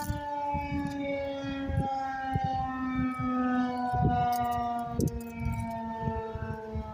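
Federal Signal 2001-DC roundback tornado siren sounding its steady alert tone, one held multi-note chord whose pitch slowly sags. Irregular low rumbles and thumps run underneath.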